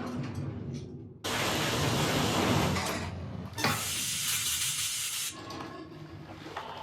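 Two long hissing rushes of breathing gas in a saturation diver's helmet, each starting and stopping abruptly, over a low underwater rumble.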